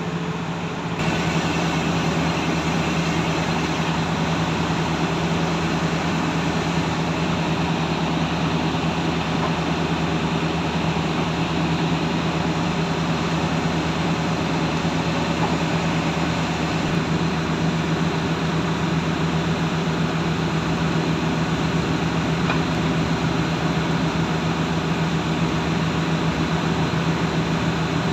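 Heavy diesel engine of a tracked earthmoving machine running steadily under load. It steps up in loudness about a second in and then holds an even, low drone.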